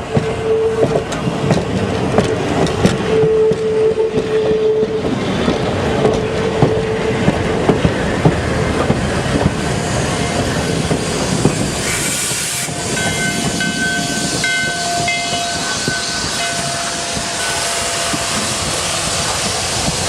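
Virginia & Truckee No. 29, a Baldwin 2-8-0 steam locomotive, running past with its train: clanking and rail clatter with a steady high tone for the first several seconds. About twelve seconds in comes a burst of steam hiss, then the locomotive's steam whistle sounds for several seconds.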